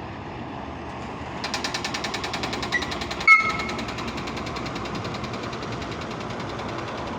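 Electro-hydraulic aerial lift running as its boom is raised: a steady mechanical noise joined about one and a half seconds in by a rapid, even clatter of about nine beats a second. A single sharp clank with a brief ring comes a little after three seconds.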